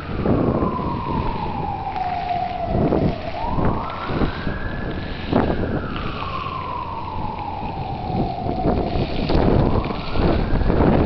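A wailing siren, its pitch rising fairly quickly and then falling slowly, with the cycle repeating about every five seconds. Wind rumbles on the microphone underneath.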